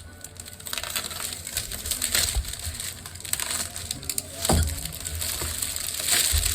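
Rustling and crinkling of packaging as wrapping and tape are pulled off a tool kit by hand, with irregular handling knocks and a louder scrape about four and a half seconds in.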